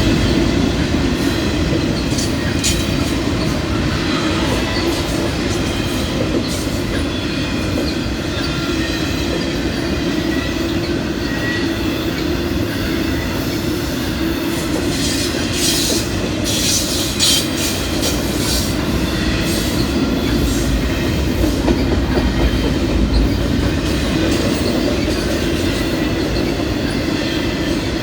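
Intermodal freight train cars rolling past with a steady low rumble and rhythmic wheel clicks over the rail joints. Wheels squeal high-pitched for a few seconds about midway.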